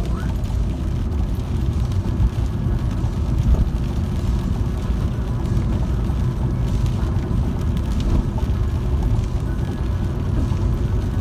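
Steady rumble of a car driving on a wet country road, heard from inside the cabin: engine and tyre noise.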